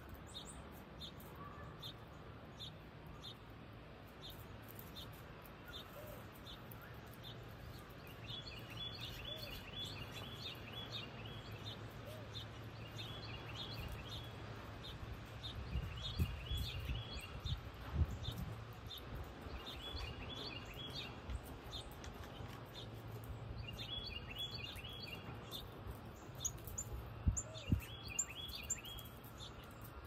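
Backyard songbirds: a steady series of high chirps about two a second, joined about eight seconds in by a short trilled song phrase repeated every few seconds, over a low steady hum, with a few low thumps near the middle and near the end.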